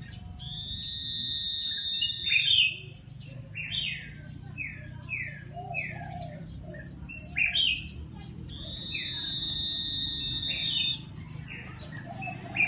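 Common iora singing: a long drawn-out whistle held for nearly two seconds that breaks downward at the end, followed by a run of short, quick down-slurred notes. The phrase comes twice.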